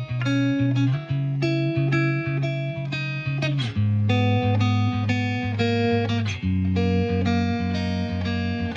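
Background music: a guitar-led instrumental passage, plucked guitar notes over a bass line that changes note about once a second.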